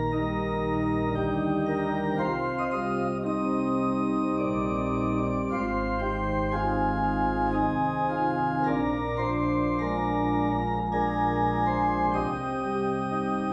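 Organ playing slow, sustained chords that change every second or two, with a rapid waver in the sound at a few points.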